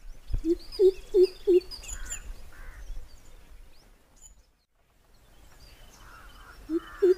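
Greater coucal's deep hooting call: a series of four hoots about three a second, starting about half a second in, and another series beginning near the end. Faint chirps of small birds sound behind it.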